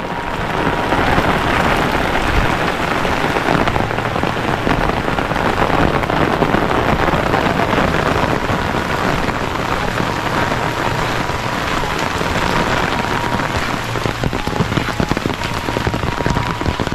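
Heavy rain pouring down steadily, a dense continuous hiss of falling water.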